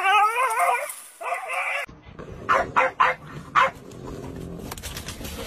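A wavering, high whine for about the first two seconds. Then a dog gives about four short, sharp barks in quick succession, with small scuffling noises.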